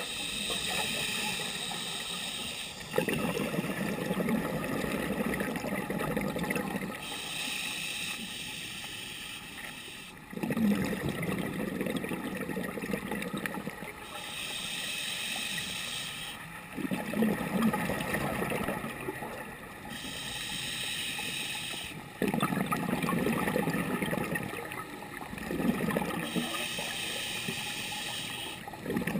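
Scuba diver breathing through a regulator underwater: a hiss on each inhale alternates with a gush of bubbling exhaled air, four slow breaths in all.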